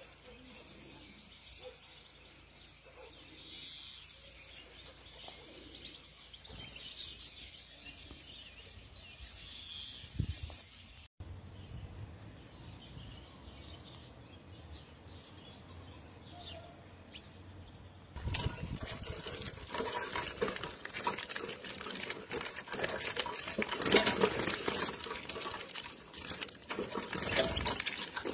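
European goldfinches chirping faintly. About two-thirds of the way through, loud dense rustling and fluttering takes over as caged goldfinches flap about in a wire cage.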